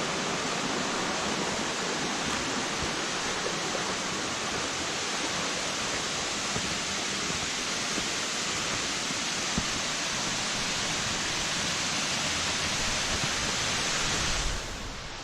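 Waterfall rushing in a steady, even roar of falling water that drops away sharply near the end.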